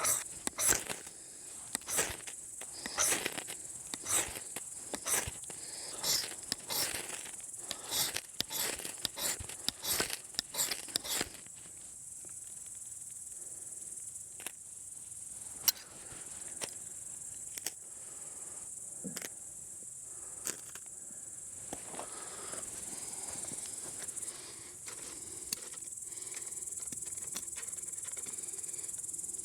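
Crickets chirping steadily in a high, even trill. Over about the first eleven seconds there is a dense run of sharp crackles and pops, which then thin out to a few scattered ticks.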